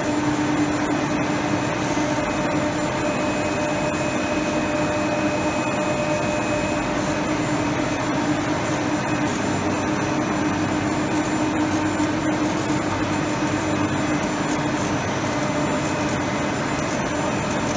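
Polyethylene shrink-film extrusion line running, its winder turning the film onto a roll: a steady machine hum with a constant low tone and a fainter higher whine over an even rushing noise.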